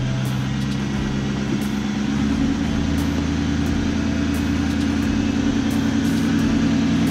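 Chrysler 300C's Hemi V8 idling steadily, its note shifting slightly a couple of times.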